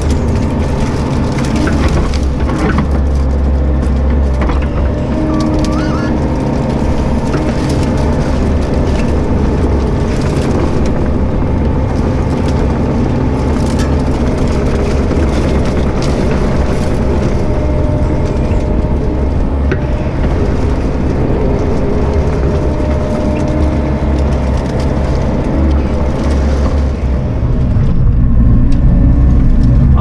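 Bobcat E42 mini excavator's diesel engine running steadily under load as its arm and thumb drag uprooted trees through brush, with branches cracking and snapping along the way. The engine gets louder near the end.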